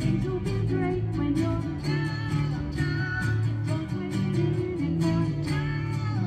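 A woman and a man singing a song together into microphones, accompanied by a strummed, amplified guitar.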